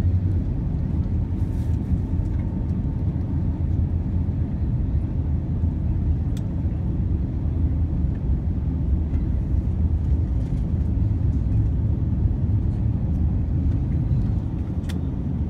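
Cabin noise of an Airbus A350-941 taxiing: a steady low rumble from its Rolls-Royce Trent XWB engines at taxi power and the wheels rolling on the taxiway, with a couple of faint clicks.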